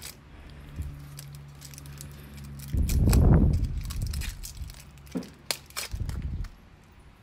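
Scattered light clicks and taps of kitchen handling over a steady low hum, with a loud low rumble about three seconds in and a shorter one near the end.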